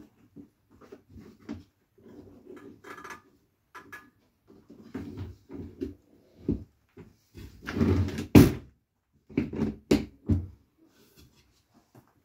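Handling noises from unpacking a table saw: cardboard packaging and parts being moved and set down, with irregular knocks and rustling. A longer, louder rustle with a sharp knock comes about eight seconds in.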